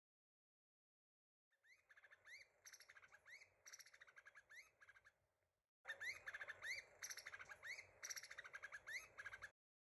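Formosan laughing thrush calling: quick rising whistled notes, about two or three a second, over a rapid chattering. There are two bouts of about four seconds, starting after a second and a half of silence, with a short break between them.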